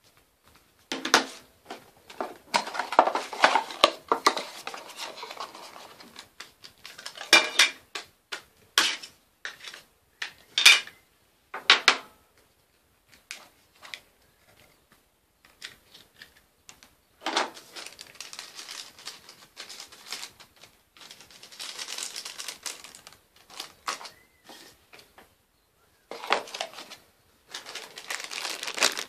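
A small plastic Nokia 100 mobile phone and its cardboard box being handled close to the microphone: irregular clicks, taps and rustles, coming in spells with a quiet spell near the middle.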